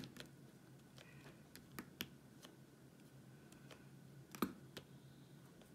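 Resin diamond-painting drills being pressed into the sticky canvas with a drill pen: a string of small, sharp crunchy clicks at irregular spacing, the loudest about four and a half seconds in.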